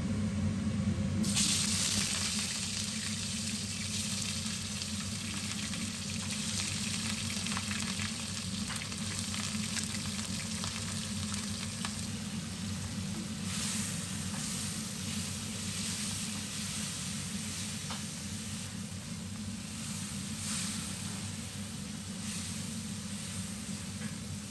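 Chunks of meat sizzling in hot oil in a wok, a steady frying hiss flecked with small crackles and spits that swells about a second in. A low steady hum runs underneath.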